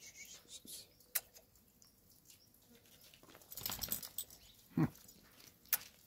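A dog getting up and moving about close by: scattered light clicks and scuffs, a brief rustle a little past halfway, and a short low sound just before the end.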